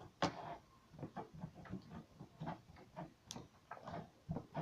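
Faint irregular clicks and small taps from hands handling slime and its little plastic tub, with two sharper clicks, one just after the start and one past the middle.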